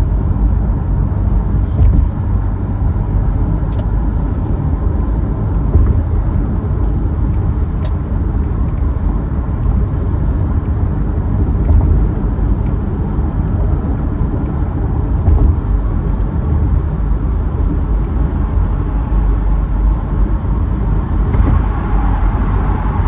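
Steady engine and road rumble from inside a moving car.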